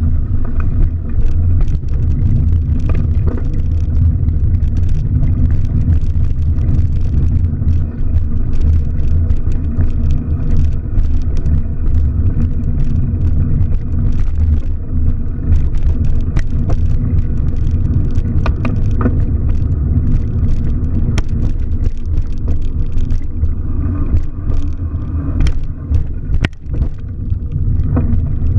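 A car driving: the engine and road noise make a steady low rumble, with frequent small rattles and clicks over it.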